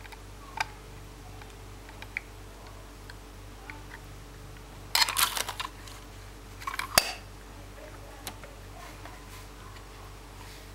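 Plastic K'Nex parts clicking and rattling as the model refuse truck's side-loader arm is worked by hand. A burst of clatter comes about five seconds in, then more rattling and one sharp knock about two seconds later, with a few single clicks elsewhere over a low steady hum.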